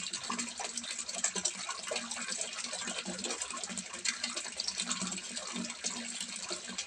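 Water pouring from a spout into a small fish pond, splashing steadily with many small irregular splashes.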